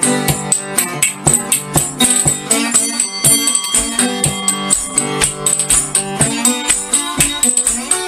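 Background music with a steady, quick beat over held pitched notes.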